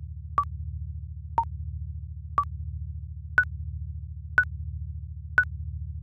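Countdown timer beeping once a second, six short electronic beeps. The first three alternate between a higher and a lower pitch, and the last three are higher still, marking the final seconds. Underneath runs a steady, pulsing low synth drone.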